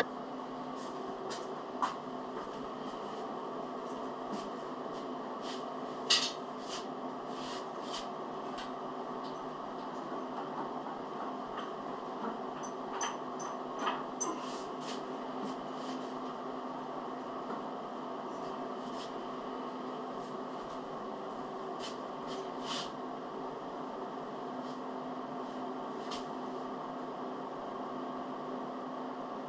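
Steady machine hum, with a few scattered light clicks and knocks.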